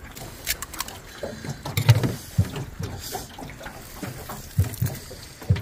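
Kina (New Zealand sea urchin) being handled and cracked open in gloved hands: irregular clicks and cracks of the spiny shell, with several low knocks.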